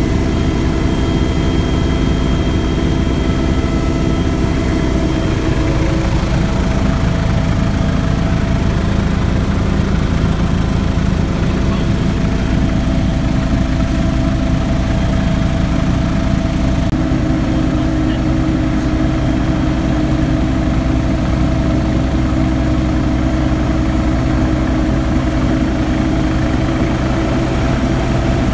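Westland Scout helicopter in flight: the steady high whine of its Rolls-Royce Nimbus turboshaft over the fast, even beat of the rotor blades.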